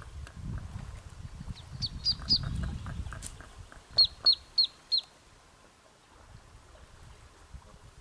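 Common goldeneye ducklings peeping. Three short, high, downward-sliding peeps come about two seconds in, then four louder ones in quick succession about four seconds in. A low rumble runs under the first three seconds.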